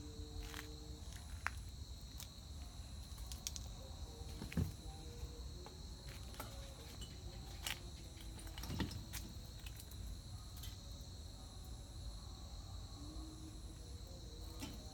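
Steady, high-pitched chirring of insects, likely crickets, with scattered faint knocks and clicks; the two loudest knocks come about four and a half and nine seconds in.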